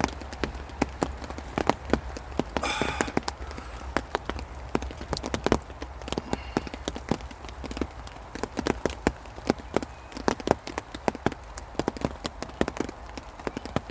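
Rain pattering on a camping tarp overhead: a pitter patter of irregular sharp taps from drops and drips, several a second.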